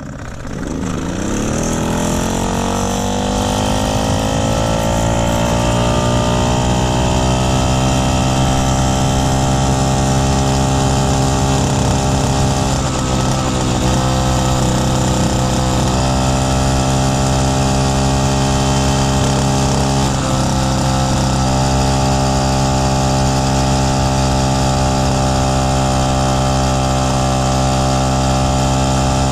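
1969 Solex 3800 moped's 49.9 cc two-stroke engine running under way. It rises in pitch over the first few seconds, then holds a steady, even pitch.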